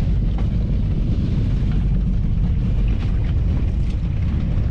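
Wind buffeting the microphone at sea, a steady low rumble, with a few faint knocks.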